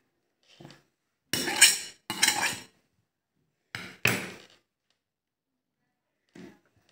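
Kitchen knife clattering against a wooden cutting board in a few short knocks and scrapes as it is handled and laid down, the loudest about a second and a half in.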